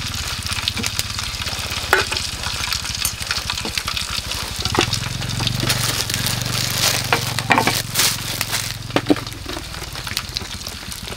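Meat sizzling on a grill over a wood fire, a steady hiss dotted with sharp pops and crackles, over a low rumble.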